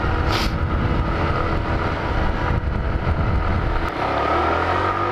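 Small Honda step-through motorbike's engine running under way, heard through heavy wind rumble on the microphone. About four seconds in the wind noise eases and the engine's steady hum comes through, rising slightly in pitch.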